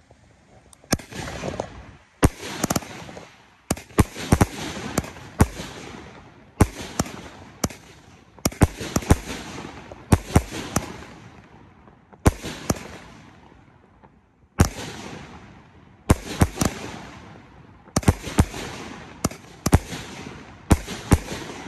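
Universal's Monkey Revenge 25-shot fireworks cake firing shot after shot, about one every one to two seconds. Each shot is a sharp bang trailed by a crackling hiss that fades before the next.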